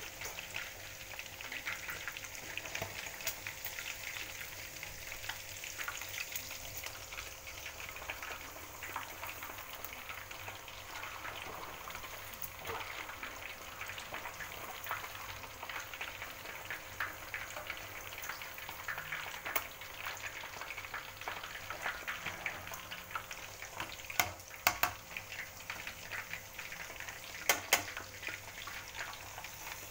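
Pre-braised, spiced chicken pieces deep-frying in a wok of hot oil: a steady bubbling crackle. A few sharp knocks come near the end.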